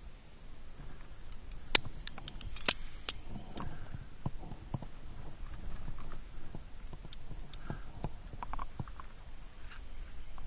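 Aluminium carabiners and quickdraws on a climber's harness clinking: a few sharp metal clicks about two seconds in, then scattered light taps and scuffs against the rock as the climber moves up.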